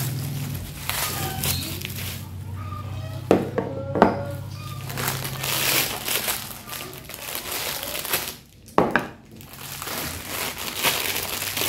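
Clear plastic wrapping crinkling and rustling as it is pulled off wooden kitchen items by hand, with a few sharp knocks as the items are set down on a wooden tabletop.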